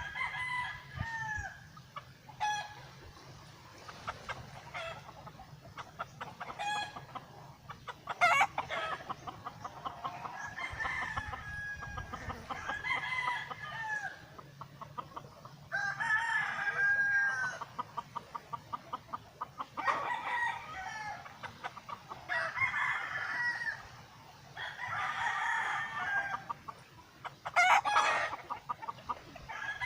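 Chickens clucking with roosters crowing, several long calls in turn, and a couple of sharp clicks.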